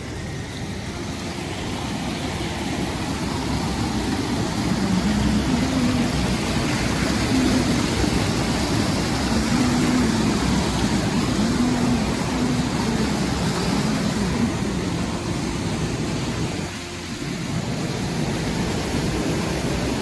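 Mountain stream running high after heavy rain, rushing and splashing over rocks at a cave mouth: a steady rush of water that grows louder over the first few seconds and dips briefly near the end.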